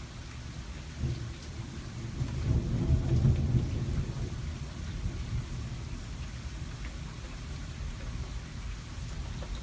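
A low rumble of thunder over steady rain: it starts about a second in, swells to its loudest around three seconds in, then fades away while the rain keeps falling.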